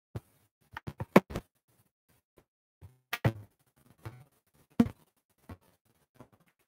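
A few irregular knocks and taps: a quick cluster in the first second and a half, a couple more a little after three seconds, and one sharp knock near five seconds.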